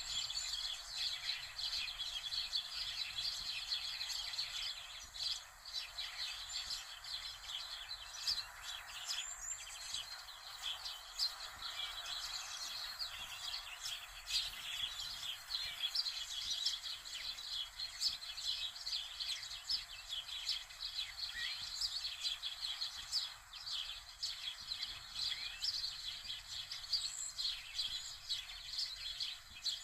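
Birds chirping and twittering continuously, a dense, high chatter with an occasional short rising note.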